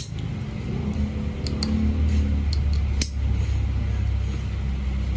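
Plastic quick-release chin-strap buckle of a motorcycle helmet being clicked open and shut by hand: a sharp click at the start, a few light clicks in the middle and a louder snap about three seconds in. A steady low rumble runs underneath.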